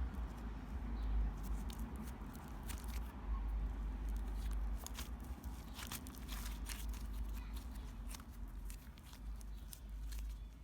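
Homemade slime being handled by hand: scattered small sticky clicks and crackles over a low rumble of handling noise.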